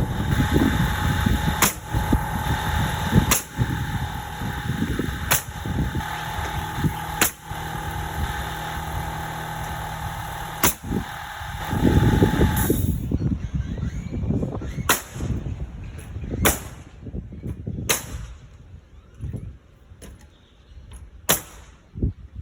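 Pneumatic siding nailer driving nails into house siding, about ten sharp shots one to three seconds apart. It is powered by a Metabo HPT cordless compressor whose steady motor hum runs under the first shots and cuts off abruptly about 13 seconds in.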